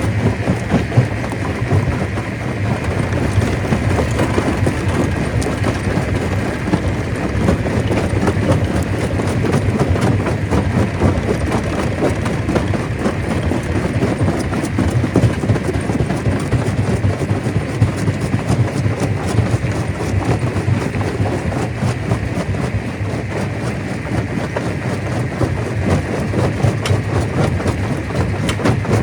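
Stone crusher running under load: a steady heavy mechanical noise with a dense clatter of rock knocking and grinding through it.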